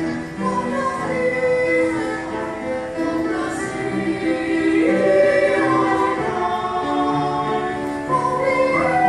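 Children's choir singing in harmony, several voice parts holding long notes together.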